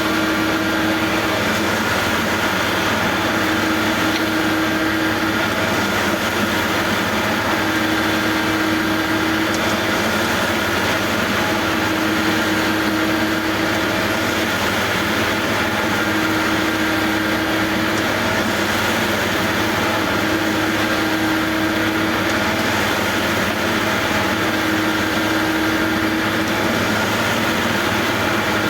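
Construction machinery engines running steadily, with a hum that swells and fades about every four seconds.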